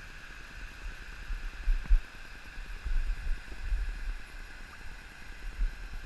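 Wind buffeting a cap-mounted action camera's microphone in uneven low gusts, over a steady faint rush of water spilling over a low dam.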